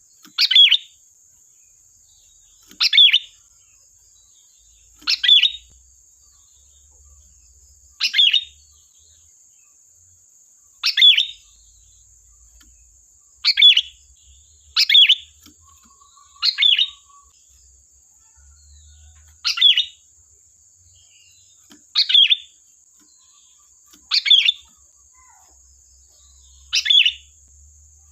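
Sooty-headed bulbul (kutilang) giving short, sharp calls, one about every two to three seconds, each lasting well under a second.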